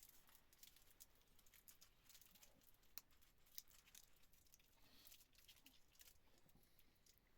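Near silence, with faint, scattered small clicks and rustles throughout.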